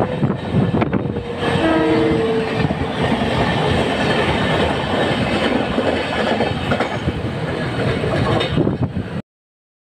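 Loud rail noise of a train running, with the steel wheels of passenger coaches on the adjacent track heard from the open doorway of a moving train. A train horn sounds briefly about two seconds in. The sound cuts off suddenly near the end.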